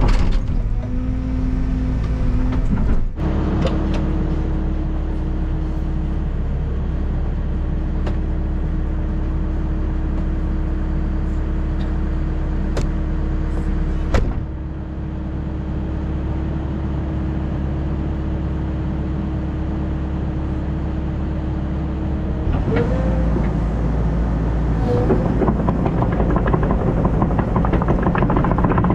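Tracked excavator's diesel engine running steadily under work. Its tone and pitch shift abruptly a few times: about three seconds in, about halfway, and again near the end.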